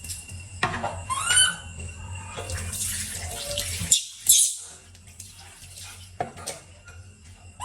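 Water sloshing and splashing while a baby monkey is bathed, with scattered small knocks. There is one louder splash a little past the middle, and a brief high squeak about a second in.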